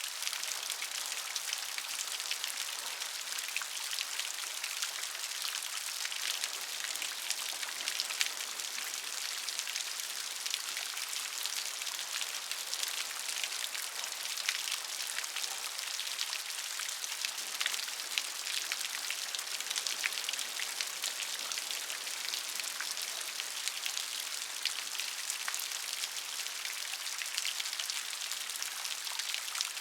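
Rain falling steadily: an even hiss made of many small, separate drop hits.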